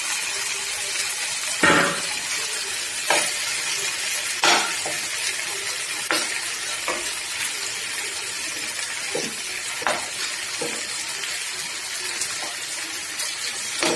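Marinated prawns sizzling steadily as they shallow-fry in oil in a nonstick pan, part-fried before being roasted. A metal spoon scrapes and taps against the pan every second or two as the prawns are turned.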